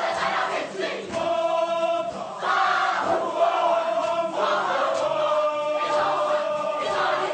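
Kapa haka group singing in unison with many voices, holding long notes in phrases that change every couple of seconds.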